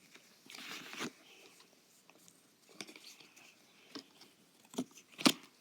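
Foil wrapper of a Pokémon booster pack being handled and torn open: a short crinkling rustle about half a second in, then a few sharp crackles, the loudest near the end.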